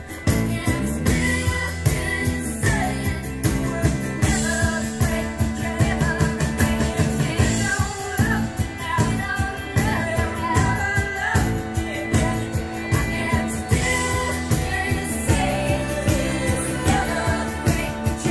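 A song with a singer and a steady beat, played over Marten Duke two-way standmount loudspeakers and picked up in the listening room.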